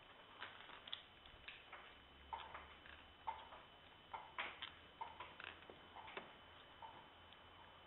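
Faint, irregular footsteps with light clicks and crunches of debris underfoot on a concrete floor, a step or two a second.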